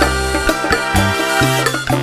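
Background instrumental music with a steady beat and plucked and mallet-like notes.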